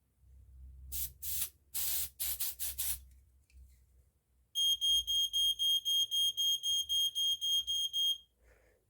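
2013 Quell ionisation smoke detector sounding its alarm: a fast, even run of high beeps, about four a second, starting about four and a half seconds in and stopping abruptly after nearly four seconds. Before it come about half a dozen short hissing bursts.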